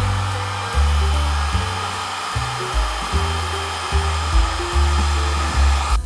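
A steady whirring hiss of a small electric motor, cutting off right at the end, over background music with a bass line.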